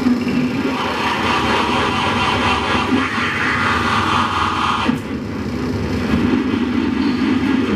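Live electronic noise music: a dense, loud wall of harsh noise over a low rumble. A bright hissing layer in the middle register cuts off abruptly about five seconds in, while the low drone carries on.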